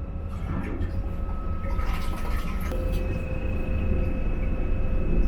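Low steady rumble of a moving vehicle heard from inside, with a steady whine that rises to a higher tone about three seconds in.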